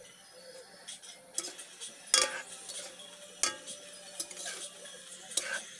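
Spatula clanking and scraping against a large metal wok while stirring pork adobo in its sauce: about five sharp knocks, the loudest a little over two seconds in.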